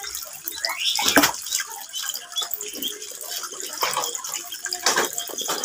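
Water from a garden hose pouring into a shallow paddling pool with a steady splash, while ducklings peep in short high chirps. There are a few louder splashes, the biggest about a second in and another near the end.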